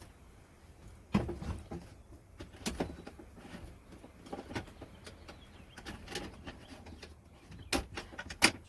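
Scattered knocks and clunks of things being handled and set down inside a camper, about half a dozen spread over several seconds. The first comes about a second in and the loudest near the end.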